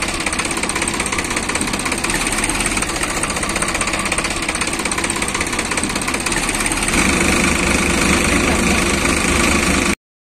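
Sonalika DI 42 RX tractor's diesel engine running steadily, growing louder about seven seconds in. The sound cuts off suddenly near the end.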